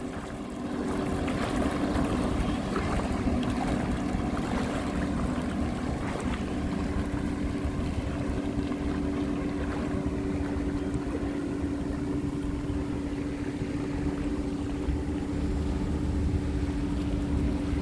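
Small Yamaha jet ski running steadily, a constant engine drone with the hiss of its wake and spray on the water.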